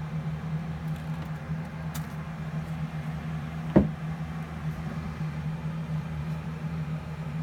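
Steady low mechanical hum, with a single sharp knock a little under four seconds in.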